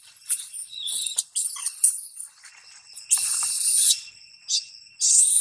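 Insects shrilling in a steady high drone. Irregular high crackles fill the first two seconds, and two loud buzzing bursts of about a second each come about three and five seconds in.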